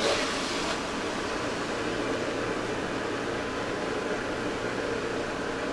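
Electric juicer motor running steadily as carrots are pressed down its feed chute with the plunger, juicing them. A brief louder burst comes right at the start.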